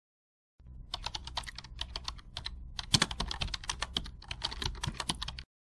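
Keyboard typing: a quick, irregular run of key clicks over a low hum, starting about half a second in and stopping shortly before the end, laid over a caption being written out letter by letter.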